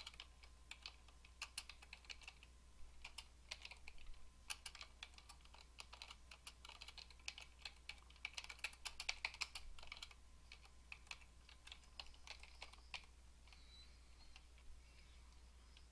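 Faint typing on a computer keyboard: runs of quick keystroke clicks that thin out and stop near the end.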